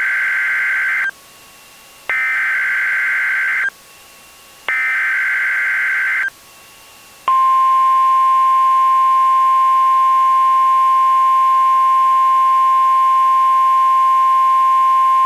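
NOAA Weather Radio Emergency Alert System activation: three short bursts of screechy SAME digital header data, then from about seven seconds in the long, steady Weather Radio alert tone, announcing a severe thunderstorm watch.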